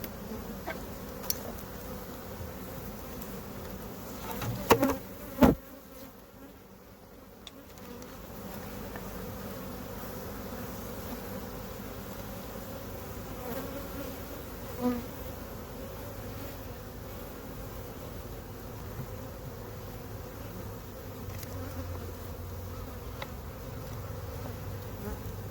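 Swarm of honey bees buzzing steadily around a nuc hive box. Two sharp knocks come about five seconds in, after which the buzzing dips for a couple of seconds before resuming.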